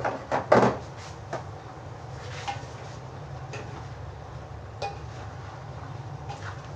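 Metal cookware clanking in a kitchen: a few loud clanks in the first second, then a metal spatula tapping and scraping against a steel wok every second or so as chicken is stirred, over a steady low hum.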